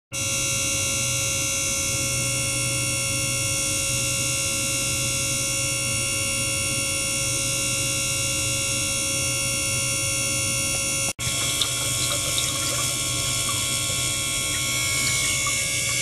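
Small electric water pump running steadily, circulating water through tubing into a beaker: a constant hum with several high whining tones and a wash of water. It cuts out for an instant about eleven seconds in, then carries on with faint ticks and trickling.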